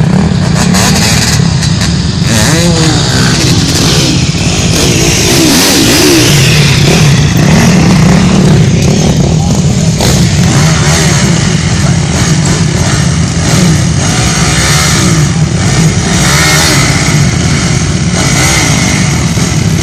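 Enduro dirt bike engines running and revving as the bikes climb over a giant-tyre obstacle, loud and continuous.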